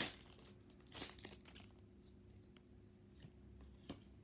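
Foil wrapper of a Pokémon card booster pack being torn open and crinkled in the hands: a few short crackles, the sharpest right at the start and about a second in.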